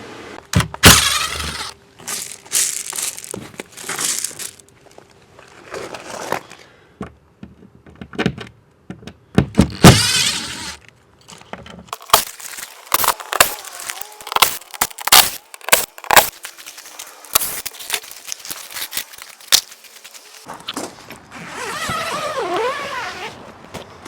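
Clatter of hands-on work, as a backer board is taken down and gear is moved: irregular knocks, bangs and scrapes, with a few longer rasping sounds of about a second each.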